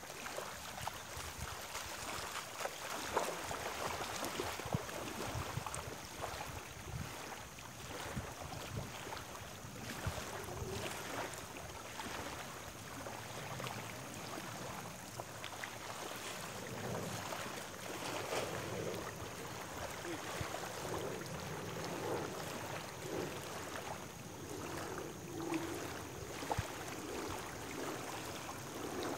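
Small waves on a reservoir lapping irregularly at the shore.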